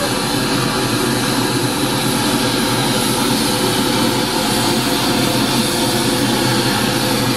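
Steady rushing test noise played through a PA loudspeaker while its frequency response is measured with a DLMS processor, unchanging throughout.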